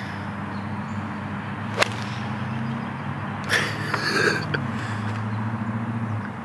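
A golf club striking the ball on a tee shot: one sharp crack about two seconds in, then a brief noisy rustle a couple of seconds later, over a steady low hum.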